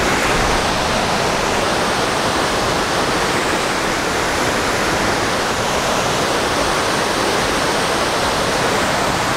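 Fast river water rushing through whitewater rapids over rocks: a steady, even rush of noise with no breaks.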